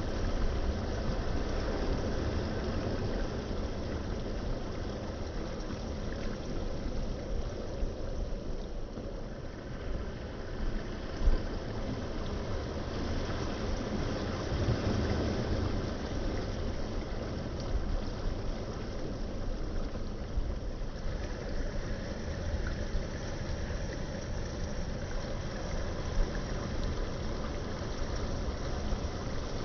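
Wind buffeting the microphone over the steady rush of water along the hull of a sailing kayak under way, with a brief knock about eleven seconds in.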